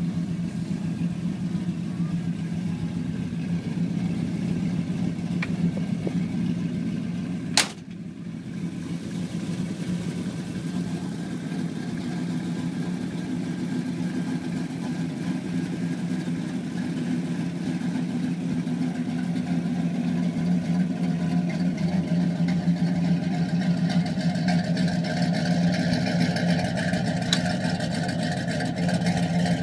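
Car engine idling steadily, growing somewhat louder toward the end, with a single sharp knock about seven and a half seconds in.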